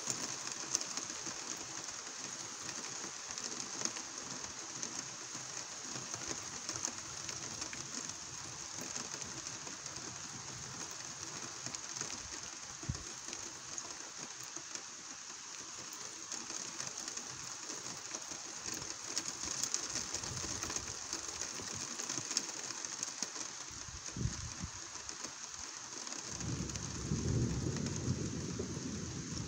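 Steady rain falling, with the patter of individual drops. A low rumble of thunder swells near the end.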